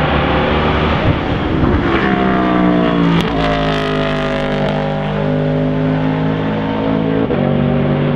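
Aston Martin V8 Vantage GTE's V8 race engine at high revs passing by. Its note drops sharply in pitch about three seconds in as the car goes past, then sinks slowly.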